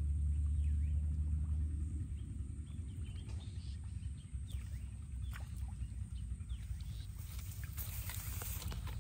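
Outdoor ambience: a low steady rumble, strongest in the first two seconds, with a handful of short, falling bird chirps scattered through it. Near the end a brief high hiss rises and fades.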